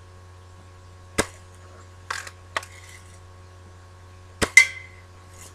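Daisy Red Ryder BB rifle being handled: a few sharp metallic clicks and clacks, the loudest two close together near the end, the second with a short ring.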